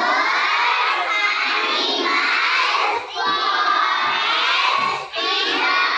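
A class of young children shouting answers all at once, their voices overlapping into a loud, unbroken babble with two brief dips.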